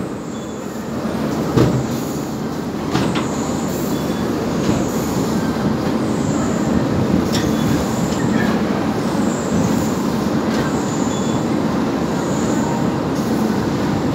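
Steady rumble and rattle of a cement-bag loading conveyor running, with faint short high squeals now and then. There are a couple of knocks in the first few seconds as heavy cement bags are handled.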